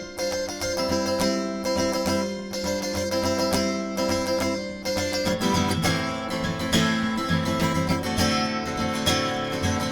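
Acoustic guitar playing an instrumental passage between sung verses. The playing turns fuller and more strummed about halfway through.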